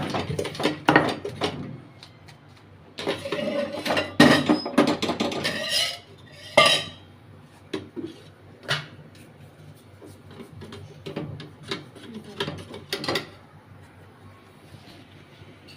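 Metal kitchen utensils and dishes clinking and clattering, busiest in the first six seconds or so, then a few scattered clinks.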